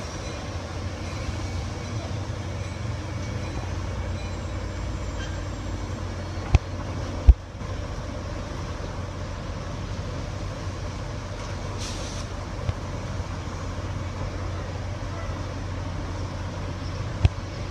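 Diesel push-pull commuter train standing at the platform, its EMD GP40FH locomotive idling with a steady low hum. Three sharp knocks cut through it, two close together about six to seven seconds in and one near the end.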